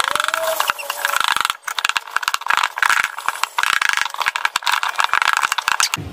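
Flour-and-egg dough being mixed in a bowl with a spatula and a plastic-covered hand, then kneaded by hand: a dense scraping, crinkling rattle with a couple of brief pauses.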